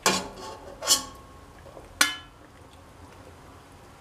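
Metal ladle clinking against the side of a stainless steel pot of boiled chickpeas in water, three sharp knocks about a second apart, the last one ringing briefly.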